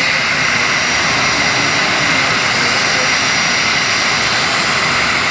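Jet engines of a Japan Transocean Air Boeing 737 running at idle as it taxis onto its stand: a steady, loud whine and hiss with a thin high tone.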